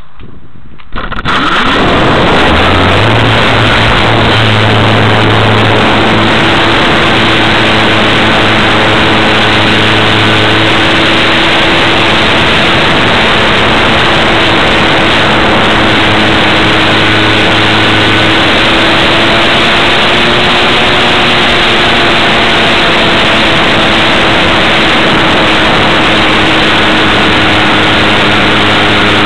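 Radio-controlled model Wilga plane's motor and propeller, heard from a camera on board, starting abruptly about a second in for the take-off and then running steadily under loud wind rush, its drone wavering slightly in pitch.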